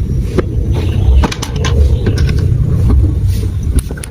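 Marbles rolling down a plastic marble-run track: a continuous rolling rumble with frequent sharp clicks and clacks as they hit the pieces and each other.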